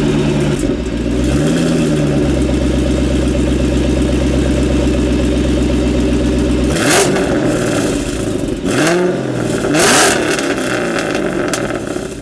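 Supercharged muscle-car engine idling steadily and being revved in place: a small blip about a second in, then two sharp revs at about seven and ten seconds in, the last one the loudest.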